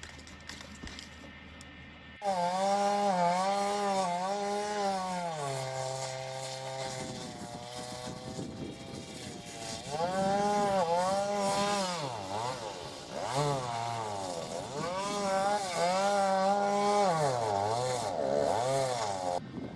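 Chainsaw at high revs cutting wood, starting abruptly about two seconds in. Its pitch sags and recovers again and again as the chain loads up in the cut, with a couple of brief deeper dips.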